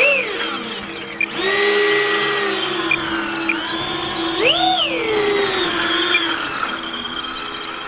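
Electric ducted fan of an RC model plane whining on throttle: it spools up about a second and a half in, is blipped higher and back down a little past the middle, then holds a steady high whine.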